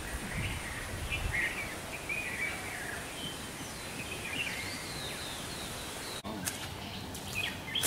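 Outdoor ambience of birds chirping and calling in the trees, short scattered calls over a faint steady hiss.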